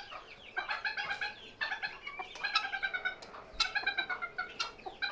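Chickens, a hen and her chicks, calling in a run of short, high, repeated calls, some falling in pitch.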